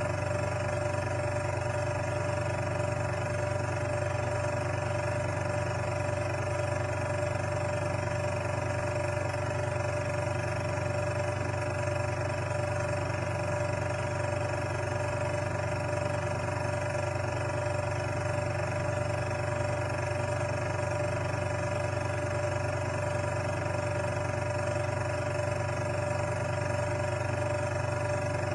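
Steady, unchanging machine hum made of several constant tones.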